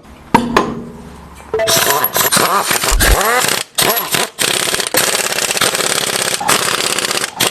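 Power wrench, most likely an impact wrench, rattling in long bursts with a few short breaks, driving home the nuts of a new stabilizer-bar end link. A single knock comes just before the first burst.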